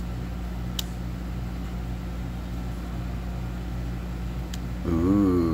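Steady low machine hum, like a motor or fan running, with a couple of faint clicks from cards being handled. A brief wavering voice sound starts near the end.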